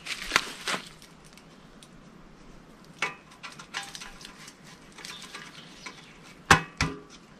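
Sharp clicks and knocks of a scythe's upper handle being handled and adjusted on the snath: two close together near the start, one about three seconds in and a louder pair near the end, with faint small clicks between.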